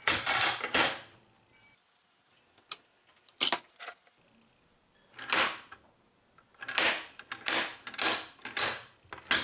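Hinged steel target paddles being flipped down and reset by hand, clanking against the steel frame of the target. The clanks come in separate bursts: a cluster in the first second, a few more in the middle, then about five in quick succession near the end.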